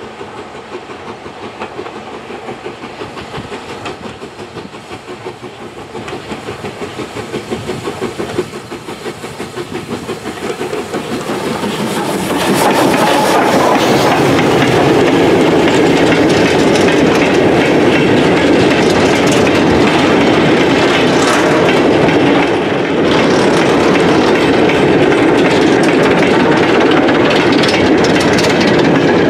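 Steam locomotive approaching with a goods train, its exhaust beating regularly. About twelve seconds in it draws close and passes, and the sound turns to the loud rumble and clickety-clack of the wagons' wheels, which runs on until near the end.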